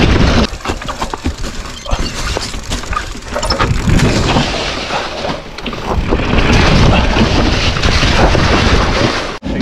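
Mountain bike riding down a rocky, leaf-covered trail: wind rushing over the microphone, tyres crunching through dry leaves and over rocks, and the bike clattering over bumps.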